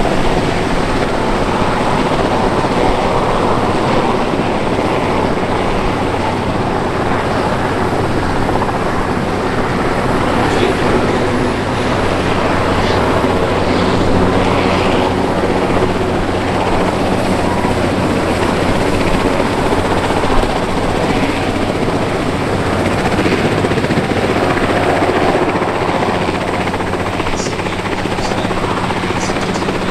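Historic Westland turbine helicopters, a Sea King among them, running close by with a steady, loud whine and rotor thrum. A single brief knock sounds about twenty seconds in.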